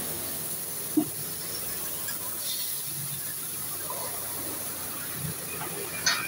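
Vegetables sizzling on a hot flat steel teppanyaki griddle, a steady hiss of frying and steam. A metal spatula clacks sharply against the plate about a second in, with a few more clacks near the end.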